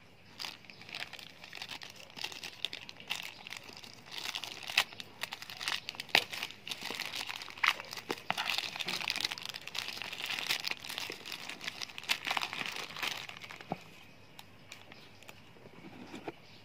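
Plastic courier packaging crinkling and being torn open by hand, a dense crackle with sharp snaps now and then; it eases off and goes quieter near the end.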